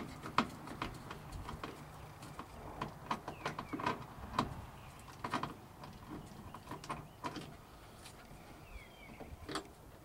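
Irregular light clicks, taps and rattles of a hand and tool working behind a truck's bare metal dash and loose wiring, loosening the fuse block.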